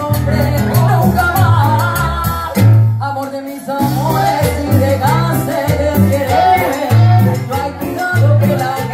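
Live cumbia band playing: a woman singing lead over a keyboard bass line, conga drums and a scraped gourd güiro. The bass drops out briefly about three seconds in, then the groove comes back.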